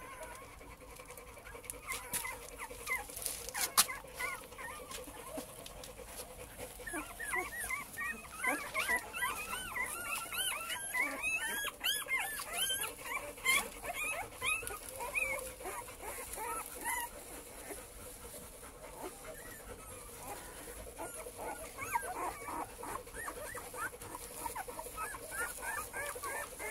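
Cane Corso puppies whimpering and squeaking in a pile: many short, high squeaks that rise and fall, busiest in the middle and picking up again near the end.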